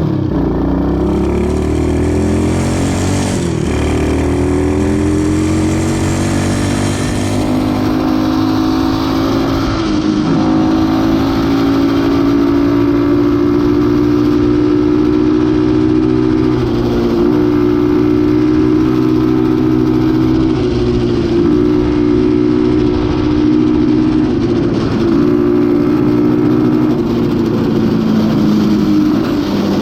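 X15 super pocket bike's small engine running under way, its pitch climbing as it accelerates early on and breaking briefly several times as gears change, then holding a steady cruising pitch.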